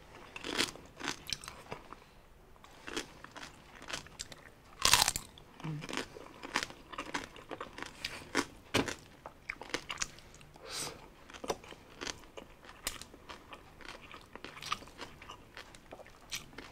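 Close-miked chewing of crispy roasted-pig (lechon) skin: a run of small crackly crunches, with one loud crunch about five seconds in.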